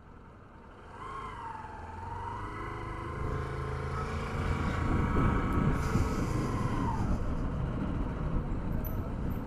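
Motorcycle engine pulling away from a stop and picking up speed, getting louder with rising road and wind noise. A wavering high whine sounds over it from about a second in until near the end.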